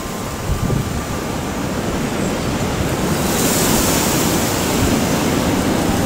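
Strong wind gusting across the microphone with low buffeting, a gust swelling about halfway through. A tubular metal wind chime rings faintly in the first second or so.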